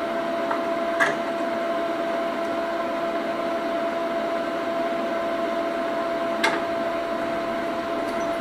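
Steady electrical hum with a clear high tone over a lower one, from off-grid solar power equipment, with two light clicks, about a second in and again about six and a half seconds in.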